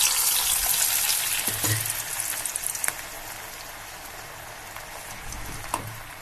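Potato sticks for French fries frying in hot oil on their first, light fry. The oil sizzles loudly, then settles to a steadier, quieter sizzle after about three seconds, with a few light knocks.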